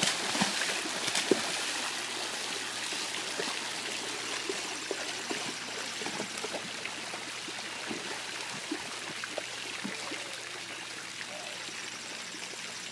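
Splash-pad water jets spraying, a steady rush of water, with a few sharp splashes in the first second or so.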